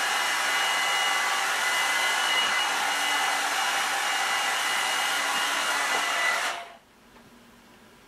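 Revlon One-Step hair dryer and volumizer (hot air brush) running: a steady rush of blown air with a faint high whine from its motor. It stops about six and a half seconds in.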